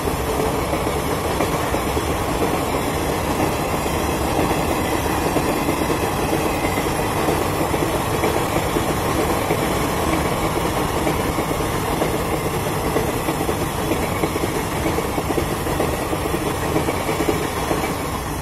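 A train of ICF passenger coaches and a parcel van running past at speed: a steady rumble with the clatter of wheels on the rails.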